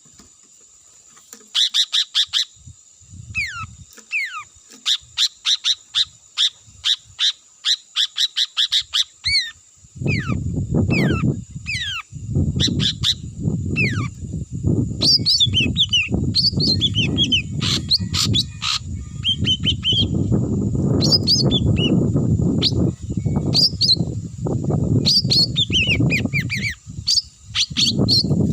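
A bird calling, the one the uploader calls 'halimon': first a rapid series of short sharp chirps, several a second, then repeated high whistles that slide downward in pitch. About a third of the way in, a loud low rumbling noise starts and runs under the calls, and a steady high-pitched whine carries on throughout.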